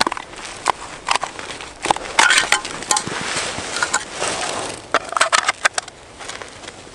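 Snow crunching and winter clothing and gear rustling as tackle is handled by someone kneeling on snow: irregular crackles with many short clicks.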